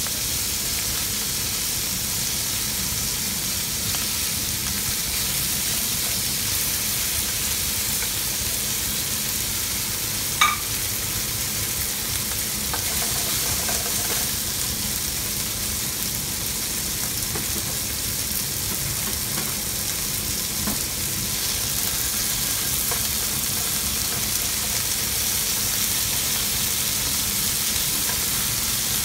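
Slices of flank steak sizzling steadily in hot oil in a frying pan, with one sharp click about ten seconds in.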